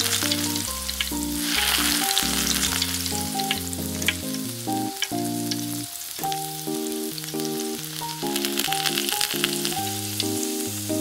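Small breadcrumbed pieces of cheese and sausage frying in hot oil, a sizzle with crackles that swells and fades several times. A background music melody plays along with it.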